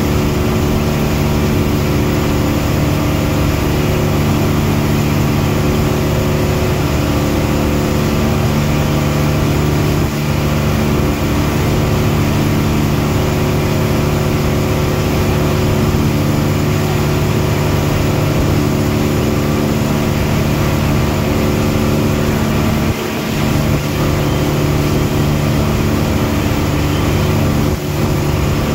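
A boat's engine running steadily at a constant pitch, heard from on board, with a steady hiss over it. The level dips briefly twice near the end.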